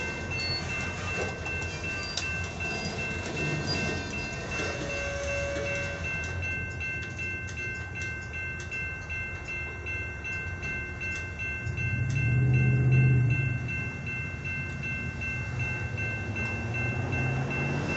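Freight train of loaded centerbeam lumber flatcars rolling past, the steel wheels clicking over the rail joints, with a steady high whine. A low hum swells briefly about two-thirds of the way through.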